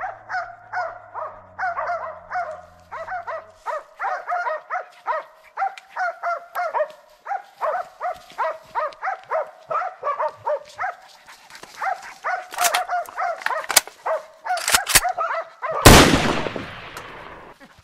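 A pack of laika hunting dogs barking without pause, two to three barks a second, baying a wounded bear. A few sharp cracks come near the end, then a single loud bang with a long fading tail.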